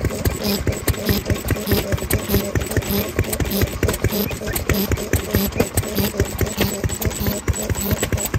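Old Japanese single-cylinder farm stationary engine (nōhatsu) running steadily, with a rapid, even mechanical beat.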